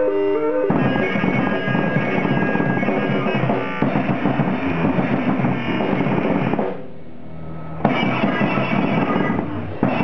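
Live band with a drum kit played fast and dense over keyboard tones. The drumming drops out for about a second after the two-thirds mark, then comes back in with a hit.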